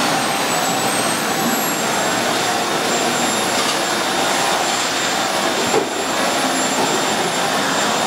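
AEG Bubble canister vacuum cleaner running steadily: a loud rush of air with a high motor whine, the nozzle being pushed across a wooden floor.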